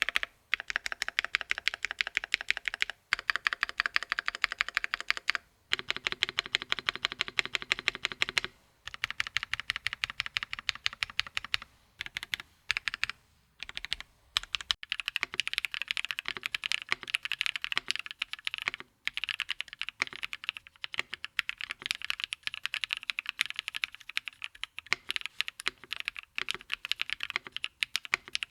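Fast, continuous typing on a Fox Lab Sunset 80 mechanical keyboard with Kailh Cream linear switches (POM housings and stems), a polycarbonate plate in a gasket mount, and Cherry-profile G80 keycaps: a rapid run of key clacks broken by a few short pauses.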